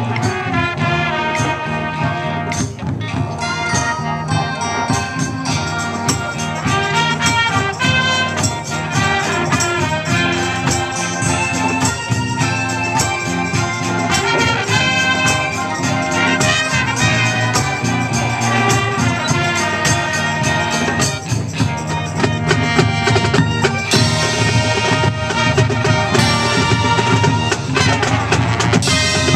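Marching band playing its competition field show: brass ensemble with marching drums and front-ensemble percussion, full and continuous with frequent percussion strikes.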